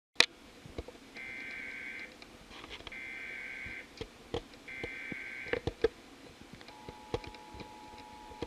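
Emergency Alert System SAME header: three short bursts of buzzy data tones, followed about seven seconds in by the steady two-tone EAS attention signal, opening a tornado warning alert. A sharp click at the very start and faint knocks between the bursts.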